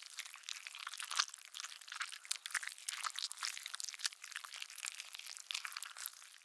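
Dense, irregular crackling: many small sharp clicks and crackles over a thin hiss, with nothing deep in it.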